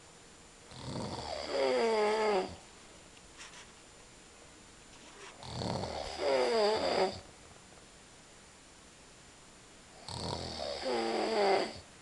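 Man snoring heavily: three long snores about four and a half seconds apart, each building into a louder, wavering pitched second half.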